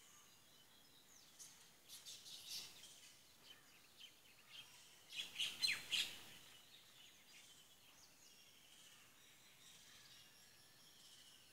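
Birds chirping: a few short high calls about two seconds in, then the loudest flurry of quick falling notes around the middle, over a faint steady hiss.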